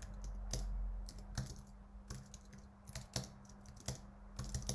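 Typing on a computer keyboard: irregular keystrokes, a few in quick succession then short pauses, over a faint steady hum.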